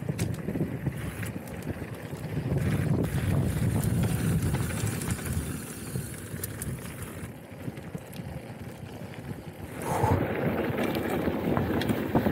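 Wind buffeting the microphone and the rolling rush of a mountain bike riding downhill, with scattered sharp knocks. It grows louder about two seconds in, eases off after about six seconds, and rises again near ten seconds.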